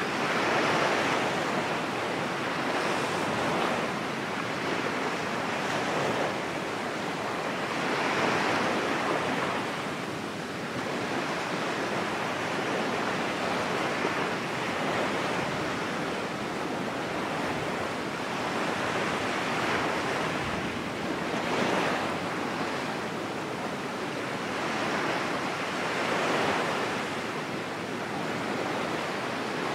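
Ocean surf: a steady rush of waves that swells and recedes every few seconds.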